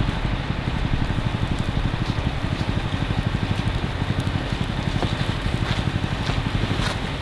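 Scania R520's 16-litre V8 diesel running steadily with a low, even pulsing, under a steady hiss.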